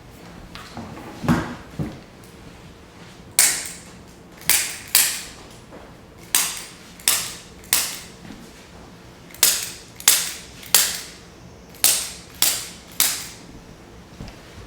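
Spring-loaded chiropractic activator adjusting instrument firing against the lower back: twelve sharp snapping clicks in four groups of three, each click about half a second apart. Two duller knocks come about a second in.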